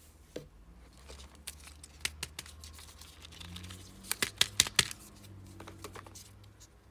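Hard plastic Kinder Joy egg cases clicking and clacking against each other as hands rummage through a box full of them, with a quick run of about five loud clicks a little past four seconds in.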